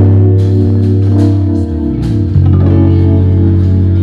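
Background music: plucked guitar over a bass line, with a steady beat.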